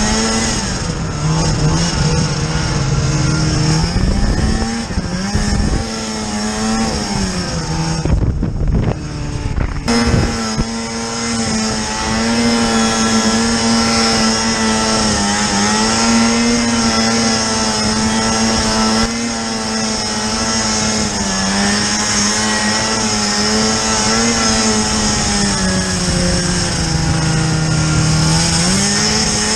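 Snowmobile engine running hard, its pitch dipping and rising again several times as the throttle is worked. About eight seconds in, it turns muffled and dull for a couple of seconds before coming back clear.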